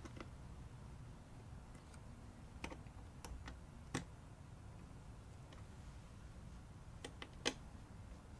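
Scattered faint clicks and ticks of a small screwdriver turning the screws of a Thermalright LGA1700 CPU contact frame a quarter turn at a time, about seven in all, the sharpest about four seconds in and near the end.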